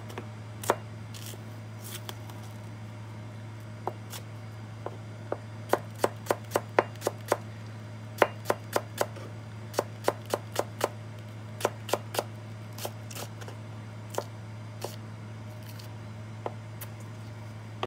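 A chef's knife slicing a green onion (Korean daepa) on a plastic cutting board: many sharp, irregularly spaced knife taps against the board, thickest between about four and thirteen seconds in, over a steady low hum.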